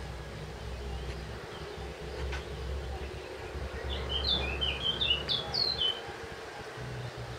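A small songbird sings a short phrase of quick chirps about four seconds in, over a steady low background rumble.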